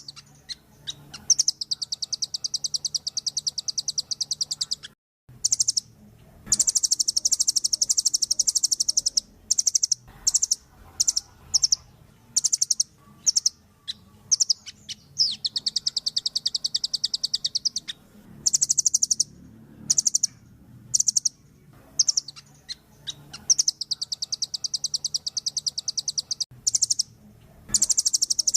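Velvet-fronted nuthatch calling: long, very fast trills of sharp, high notes lasting a few seconds each, broken by short single notes and brief pauses.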